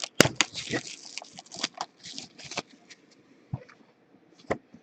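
Football trading cards being handled and flipped through: a busy run of card clicks and rustles over the first two or three seconds, then a few single clicks.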